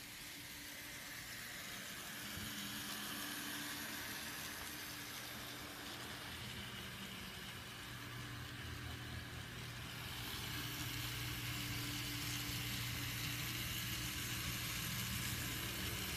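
N scale model diesel locomotives pulling boxcars along the track: a steady mechanical hum and rumble that gets louder about ten seconds in as the locomotives come close.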